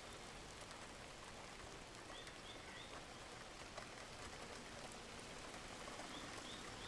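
Soft, steady rain ambience with a few faint short bird chirps: a run of three about two seconds in and a couple more near the end.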